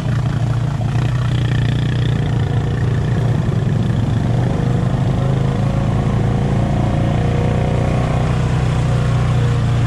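ATV engine running at a steady speed, a continuous low drone that holds nearly the same pitch.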